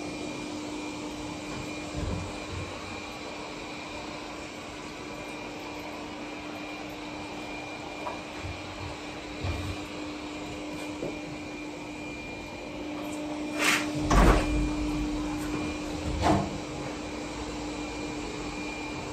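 Steady machine hum with a constant low tone and a faint high whine. About two-thirds of the way through come a few knocks and clatters, the loudest a pair of thuds close together, then one more a couple of seconds later.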